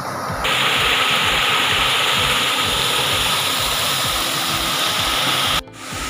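Water from a small waterfall cascade pouring over a limestone ledge into a pool: a steady rushing hiss. It gets louder about half a second in and drops out briefly near the end.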